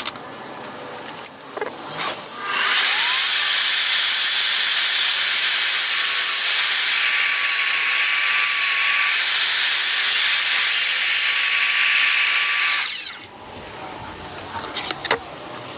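Evolution F255SMS mitre saw's 1600 W motor starts about two seconds in and runs for about ten seconds with a steady whine while its 255 mm multi-material TCT blade cuts through a 2 cm engineered wood flooring board (veneer over ply). It then stops, and small handling knocks follow.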